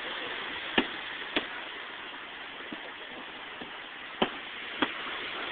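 Fireworks going off: four sharp bangs, a pair about a second in and another pair near the end, over a steady hiss.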